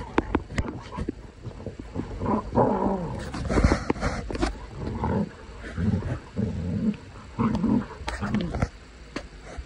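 Two dogs play-wrestling, growling in repeated short bursts with scattered sharp clicks.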